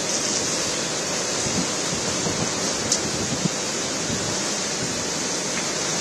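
Strong cyclone wind and heavy rain, a steady, dense hiss of rain and gusting wind with no let-up.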